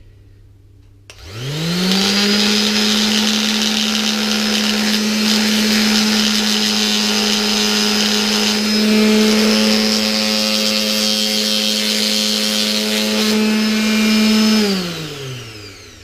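Electric orbital sander switched on about a second in, spinning up and running steadily and loudly, then switched off and winding down near the end. Its vibration is shaking a screwgate carabiner held against it, which works the tightly screwed gate loose until it comes undone.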